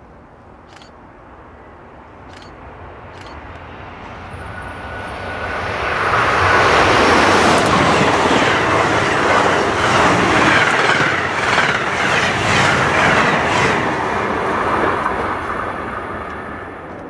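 Amtrak passenger train of Amfleet coaches passing at speed. The wheel-on-rail noise builds over a few seconds and stays loud, with a run of regular clicks as the cars' wheels cross the rail joints, then fades as the train goes away.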